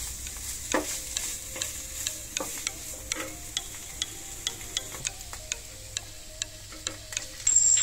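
Wooden spatula stirring and scraping sliced mushrooms and crumbled garlic longanisa in a nonstick frying pan over a light sizzle, with sharp clicks of the spatula against the pan about three times a second. A louder burst comes near the end.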